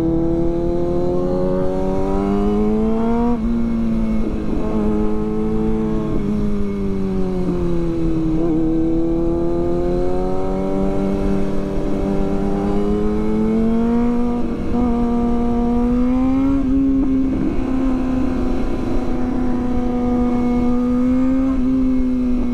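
Kawasaki Ninja sportbike engine heard from the rider's seat, its revs rising and falling slowly through the turns, with a few short dips in pitch. A steady low rush of wind runs under the engine.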